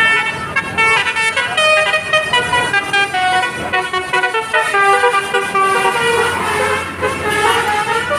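Bus "telolet" basuri horn playing a melody: a run of short held notes stepping up and down in pitch.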